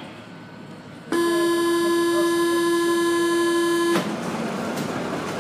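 Door-closing warning tone on a Paris Métro Line 1 train: one steady, loud buzzer note starts about a second in, holds for about three seconds and cuts off sharply. It signals that the doors are about to close.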